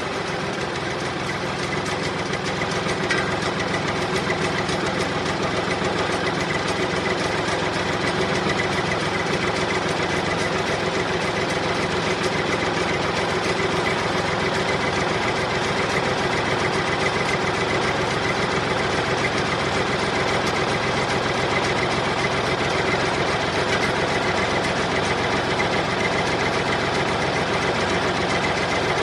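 An engine running steadily at idle, with a fast even chugging.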